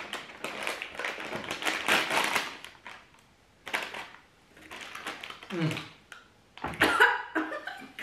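Plastic snack bag of seaweed crinkling and rustling as it is pulled open. Short vocal sounds and laughter follow near the end.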